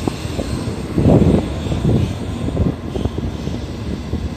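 N700 series Shinkansen pulling out of a station and gathering speed as its cars pass close by: a continuous rushing running noise with uneven low rumbles that swell and fade.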